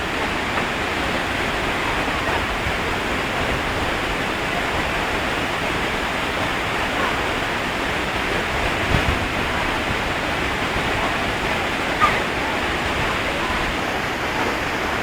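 Waterfall rushing in a steady, even roar of falling water, with two brief sharper sounds about nine and twelve seconds in.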